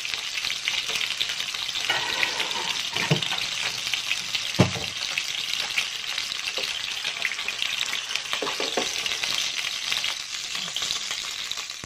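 A whole parrotfish shallow-frying in hot oil in a nonstick pan: a steady hissing sizzle with a few scattered oil pops, the loudest about four and a half seconds in.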